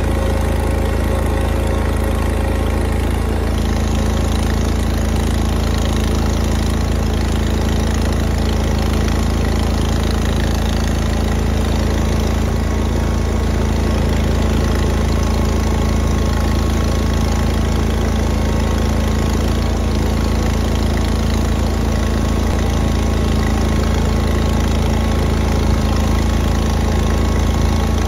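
Garden tractor engine running steadily.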